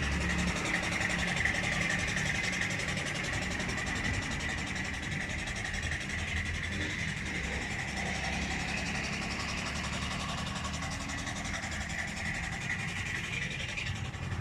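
A machine running steadily: a low drone with a hiss over it. The hiss is stronger at first, fades through the middle and comes back near the end.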